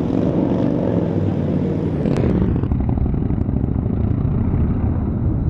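Indian V-twin motorcycle engine running as the bike rides off in traffic, a loud, steady low rumble that starts abruptly.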